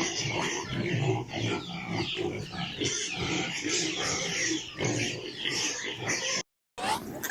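A group of piglets calling together, many short overlapping calls, with a brief break near the end.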